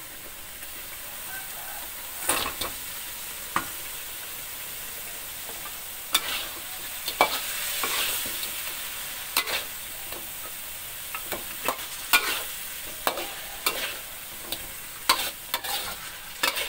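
Fried mackerel tuna pieces frying in chili paste in a metal wok, a steady sizzle, while a metal spatula stirs them, knocking and scraping against the wok in irregular clanks that come more often in the second half.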